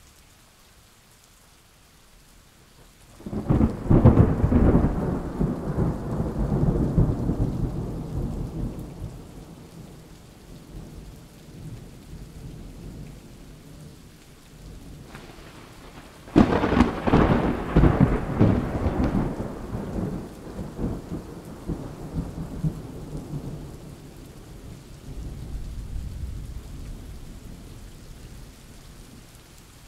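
Thunderstorm with steady rain hissing: a clap of thunder breaks about three seconds in and rumbles for several seconds. About halfway through a second, sharper crack rolls into a long rumble, and a fainter rumble follows near the end.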